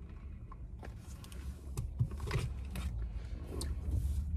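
Faint sounds of drinking a smoothie from a plastic cup through a straw: small sips, clicks and creaks, scattered over a low steady hum.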